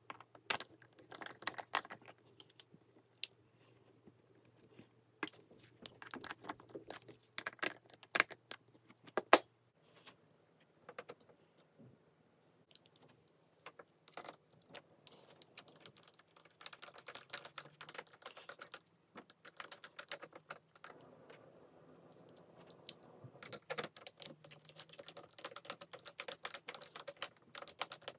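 Hand screwdriver driving screws to fasten a metal cabinet hinge onto an acrylic sheet: irregular runs of small, sharp metallic clicks and ticks as the bit turns in the screw heads and the hinge parts knock together, with one louder click near the middle.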